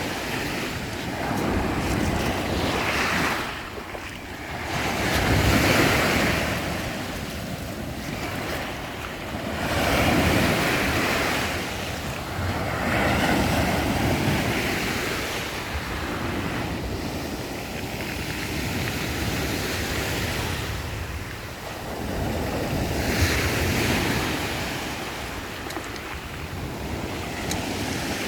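Black Sea waves breaking on the shore and washing back, a fresh wave swelling up every three to four seconds, with wind rumbling on the microphone.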